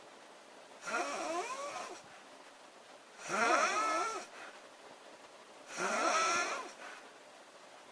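A woman snoring in a steady rhythm: three snores about two and a half seconds apart, each lasting about a second, with a wavering, fluttering pitch.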